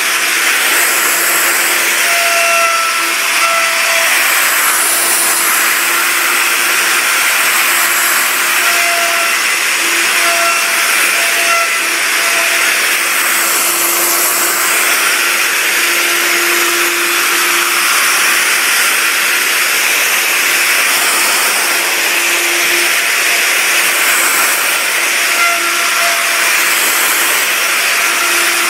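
Electric plunge router running at speed, its bit cutting into a timber beam as it is pushed along a sled jig to surface the wood: a loud, steady high whine and rushing noise, with a lower hum that fades in and out as the load changes.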